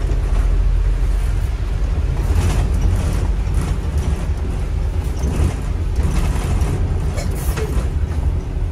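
A moving bus's engine and road noise heard from inside the bus: a steady low rumble with a few brief clatters.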